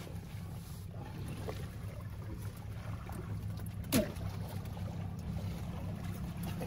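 Outboard motor idling steadily with a low hum. About four seconds in there is one brief sharp sound.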